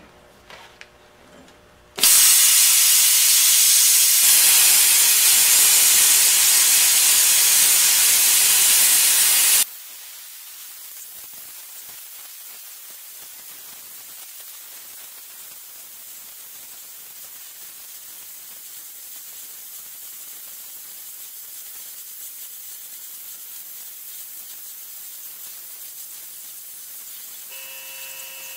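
Hypertherm Powermax 45 plasma cutter's arc hissing as it slowly cuts through 1¼-inch steel plate, at the limit of what the machine can cut. The hiss starts about two seconds in, is loud for several seconds, then drops sharply to a much quieter steady hiss. A faint steady whine joins near the end.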